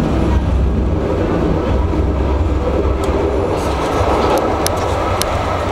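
Tram running along its track, heard from inside the driver's cab: a steady low rumble of wheels on rail under a steady high whine, with a few sharp clicks in the second half.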